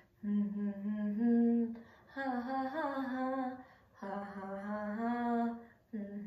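A woman humming a song melody unaccompanied, in three long held phrases of about two seconds each with short breaths between.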